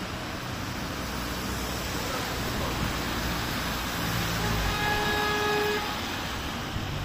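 City traffic on a rain-soaked street: a steady hiss of rain and tyres on wet asphalt under the low run of car engines. About five seconds in, a car horn sounds once for about a second.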